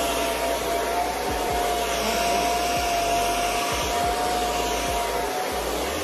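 Handheld hair dryer running steadily as it blows on a section of hair: a constant rush of air with a steady motor whine.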